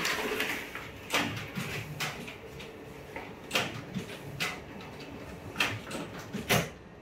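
Plastic covers and latches of a Ricoh MP 5002 photocopier being handled, giving about six sharp clicks and knocks spread over several seconds.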